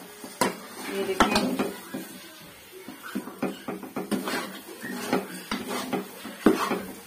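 Steel spoon scraping and clinking against a metal kadai while thick semolina-and-jaggery halwa is stirred continuously so it does not stick, an irregular run of scrapes and knocks.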